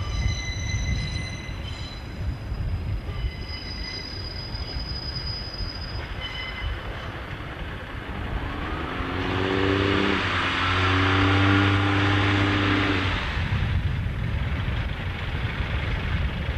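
Railway wagons rolling past with thin, intermittent high-pitched wheel squeal, then a diesel multiple unit passing, growing loudest about nine to thirteen seconds in with a low pitched note that breaks briefly and resumes.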